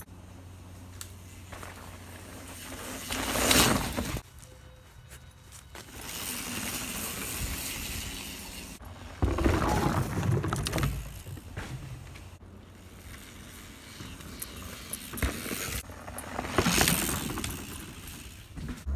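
Santa Cruz Nomad mountain bike passing close by three times, about three and a half seconds in, around ten seconds and near the end: a rushing swell of tyre noise and rattle each time. On the middle pass the tyres roll over wooden boardwalk planks.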